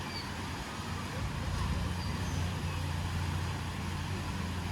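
A motor vehicle running close by: a steady low engine hum that grows a little louder through the middle, over street background noise.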